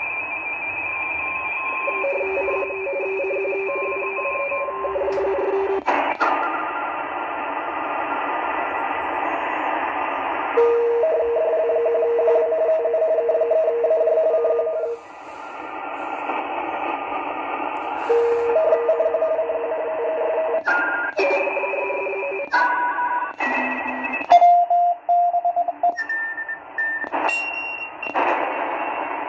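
ATS-20 SI4732 shortwave receiver in LSB mode, tuned across the 40-meter band near 7.05 MHz: a hiss of band noise with steady beeping tones of digital signals that switch on and off and jump between pitches. The pitches shift and brief clicks break in as the dial is turned, more often in the last third. The owner takes these signals for possible Russian or Ukrainian interference in the CW portion of the band.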